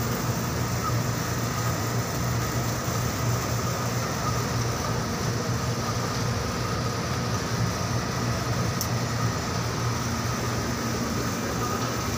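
Steady mechanical hum and low rumble, unchanging throughout, with a faint higher tone over it.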